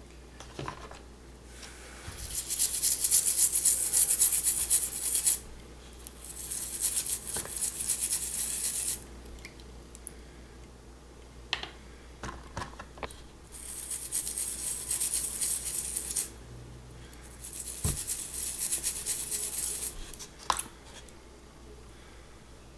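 Small rubber toy-truck tires being scrubbed in a plastic tub, in four bouts of quick back-and-forth rubbing strokes, each lasting a few seconds. Light clicks and knocks sound between the bouts.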